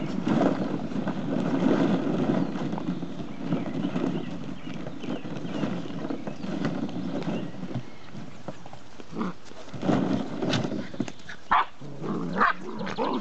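Hollow plastic ball-pit balls clattering and rustling against each other and the plastic tub as Old English Sheepdog puppies rummage through them, with a few short puppy yips near the end.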